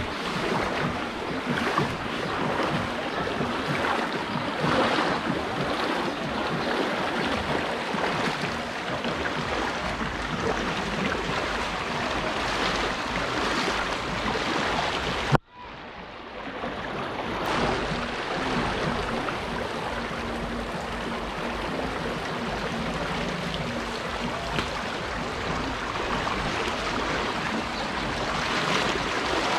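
Floodwater rushing, a steady noise that cuts off abruptly about halfway through and picks up again a moment later.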